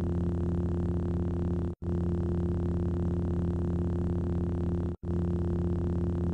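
Lightsaber idle-hum sound effect: a steady low electric hum, looped, which cuts out for an instant twice.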